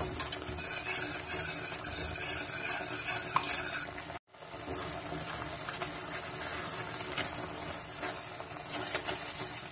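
Egg halwa mixture frying in ghee in a metal karahi, sizzling as it is stirred: a wire whisk scrapes and clinks against the pan, then, after a brief break about four seconds in, a spatula stirs it with a steadier sizzle. The mixture is still moist and is being cooked down until the ghee begins to separate.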